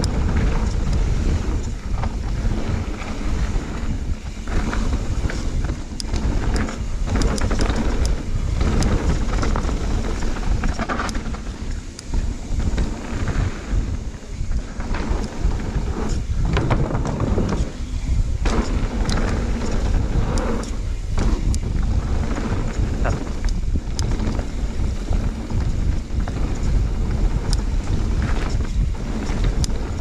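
Mountain bike ridden fast down a dirt trail: wind buffeting the camera's microphone over the tyres rolling on dirt, with frequent sharp clicks and rattles from the bike as it goes over bumps.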